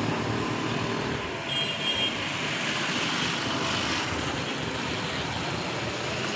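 Steady outdoor road-traffic noise, a continuous rush of passing vehicles.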